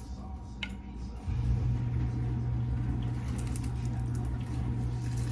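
A steady low machine hum starts abruptly about a second in and keeps going, after a couple of light clicks.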